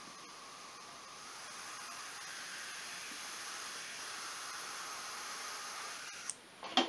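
Air hissing steadily out of the open coolant bleeder screw on the cylinder head of a 1996 Polaris Sportsman 400 two-stroke as the radiator is filled: trapped air being purged from the cooling system. It grows a little louder about two seconds in and cuts off suddenly near the end, as coolant reaches the bleeder.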